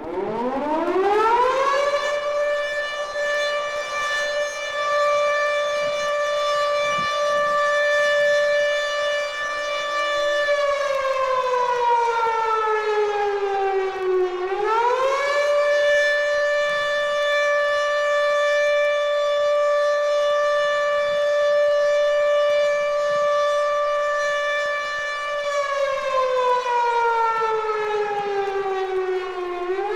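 Civil defense siren winding up in about two seconds to a steady tone. It holds for about eight seconds, slides down in pitch over a few seconds and winds back up, then holds again before sliding down once more near the end.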